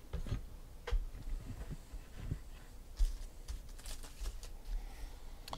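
Faint scattered clicks, taps and soft thumps of small objects being handled, with a few sharper ticks about three and four seconds in.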